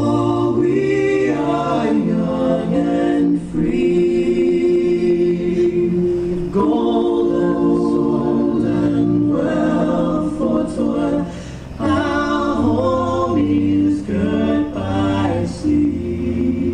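A choir singing a national anthem, with long held notes.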